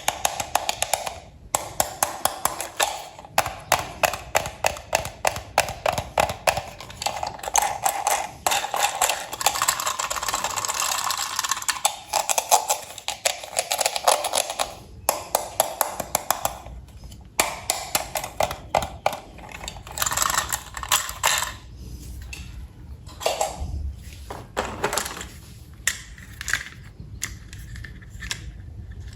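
Hard plastic toy train parts being handled and fitted together: a dense run of sharp clicks and taps, thinning out to sparser clicks with short pauses in the second half.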